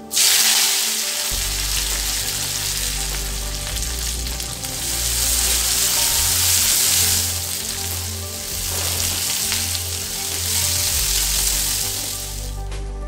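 Curry leaves dropped into hot oil in a metal kadai sizzle loudly at once, then peanuts and green chillies keep frying in the oil as a spatula stirs them. The sizzle cuts off near the end. Background music with a low beat plays underneath.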